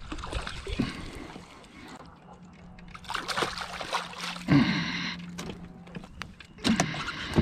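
Water splashing as a hooked fish thrashes at the surface beside a kayak. From about halfway through, geese honk several times: loud, falling calls that stand out over the water sounds.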